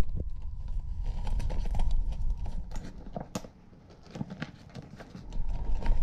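Irregular clicks and knocks of a large plastic zipper slider being fed onto and worked along the separated teeth of a Yeti Hopper 30 soft cooler's zipper, with a low rumble from the bag being handled.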